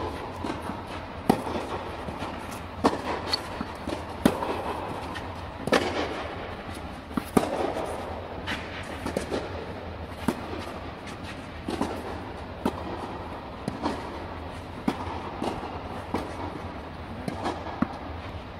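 Tennis rally on a clay court: sharp racket strikes on the ball every second or so to a second and a half, with softer ball bounces between them, inside an air-supported tennis dome.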